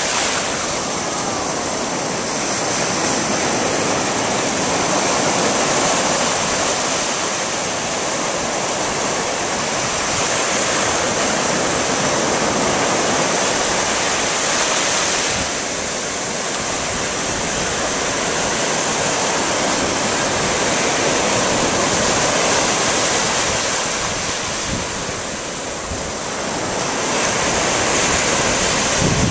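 Surf breaking and washing up on a sandy beach: a steady rush of waves that swells and eases, dropping back briefly about halfway through and again near the end.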